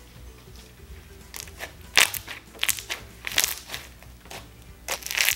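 Red crunchy slime packed with foam beads being squeezed and pressed by hand, giving irregular bursts of crackling crunch. The crunching starts about a second and a half in.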